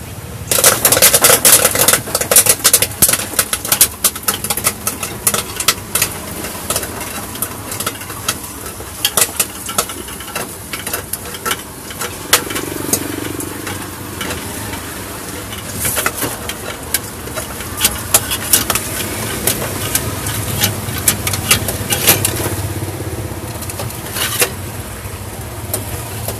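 Popcorn popping in a street-cart metal kettle popper: many sharp, irregular pops, densest in the first couple of seconds and coming in clusters again later.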